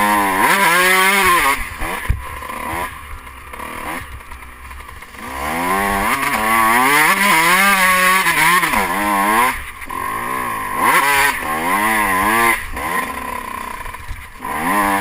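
Kawasaki motocross bike's engine, heard from the rider's helmet, revving up and falling back again and again as the throttle is worked. It eases to a quieter low running a couple of seconds in and again near the end, with long hard pulls through the middle.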